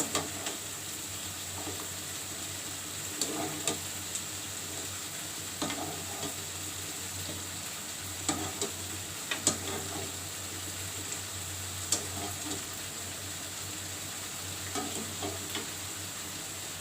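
Food sizzling in a pan while a utensil stirs it, knocking against the pan a dozen or so times at irregular intervals.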